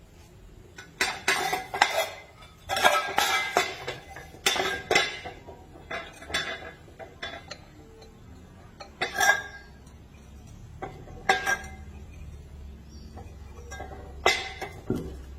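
Metal pieces clanking and clinking together as they are handled, a series of irregular sharp knocks that ring briefly, thickest in the first few seconds and then sparser.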